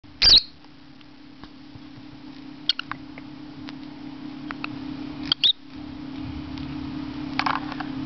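Small pet parrot giving short, high, squeaky chirps in four brief bouts a couple of seconds apart, over a steady low hum.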